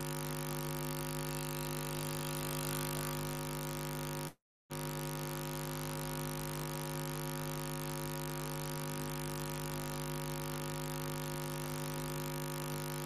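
Steady electrical hum with a ladder of overtones, which cuts out completely for about half a second a little over four seconds in, then returns unchanged.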